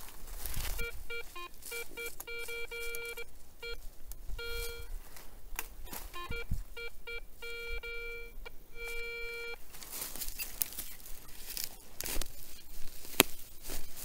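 Garrett ACE 250 metal detector beeping in stop-start tones of varied length as the coil is swept back and forth over a target. The beeps stop after about nine and a half seconds; a few sharp knocks and rustling follow near the end.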